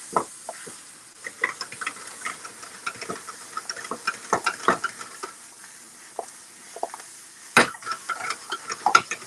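Apple pie filling sizzling in a hot skillet while a utensil stirs it, scraping and clicking against the pan. One sharper knock on the pan about seven and a half seconds in is the loudest sound.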